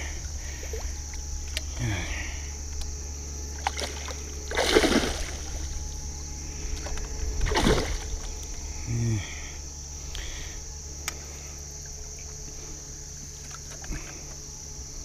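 Carp splashing and thrashing in a landing net held in shallow river water as it is released, with two louder splashes about five and eight seconds in and smaller sloshes between.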